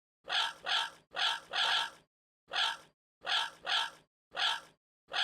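Parrot squawking: about nine short, separate calls, some in close pairs, with brief silences between them.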